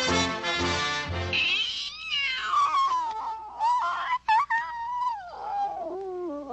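Cartoon orchestral score: repeated full chords over a beat for about a second and a half, then a single high line that slides and wavers up and down in pitch.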